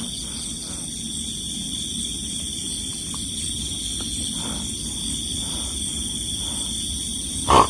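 Low, continuous animal-like growling, taken by the ghost hunters for a pig spirit, over a steady high-pitched drone; a short, louder sound breaks in near the end.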